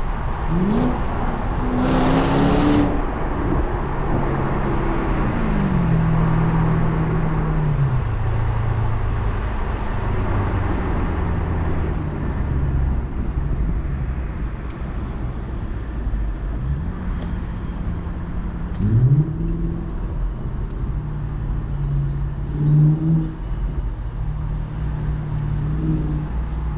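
The 2010 BMW 650i Cabrio's V8 engine and exhaust accelerating and easing off in city driving: the pitch climbs under throttle and falls away several times, with stretches of steady cruising between. A loud rush of noise comes about two seconds in.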